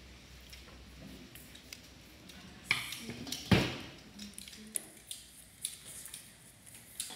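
A small knife scraping the thin skins off cashew kernels, then a toothbrush brushing them clean: scattered soft scratches and small clicks, with a louder knock about three and a half seconds in.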